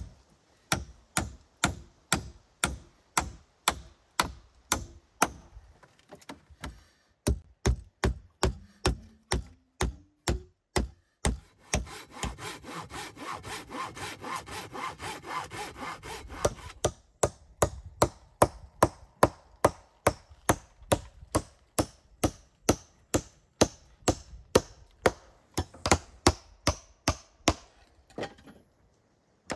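Hand saw cutting through a thick wooden board in steady back-and-forth strokes, about two to three a second, with a couple of short pauses.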